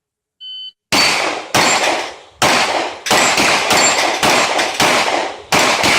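A shot timer beeps briefly, then a Glock 30S .45 ACP pistol fires eight shots at steel plates, one roughly every 0.6 to 0.8 seconds. Some shots are followed by a thin ring of struck steel.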